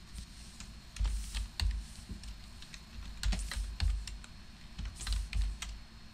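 Typing on a computer keyboard: short bursts of a few keystrokes with pauses between, as numbers are entered into a table.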